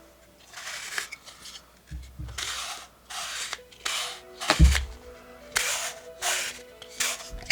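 Wooden puzzle-box panels being slid and rubbed by hand: a series of short scrapes about once a second, with sharp wooden clicks and one louder knock about halfway through.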